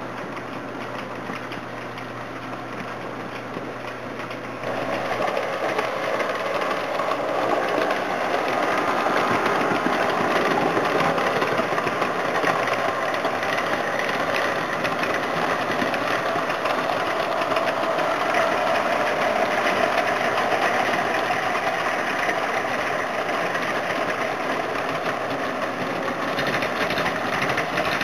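S gauge model train running on the layout: a steady rolling clatter of the American Flyer gondola cars' wheels on the three-rail track, with the whir of the S Helper diesel switchers' motors. It gets suddenly louder about four and a half seconds in and then holds steady.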